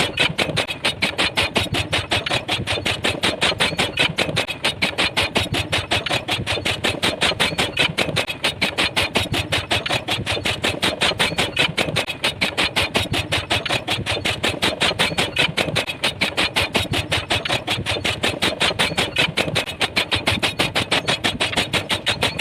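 Pile driver hammering in a rapid, even rhythm, several sharp blows a second without a break.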